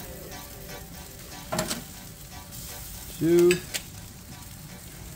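Steady sizzling hiss from a lit gas grill with fully roasted foil-wrapped eggplants and a tomato on the grates. A sharp metal clack about one and a half seconds in, as tongs lift a packet, and a short pitched hum a little after three seconds.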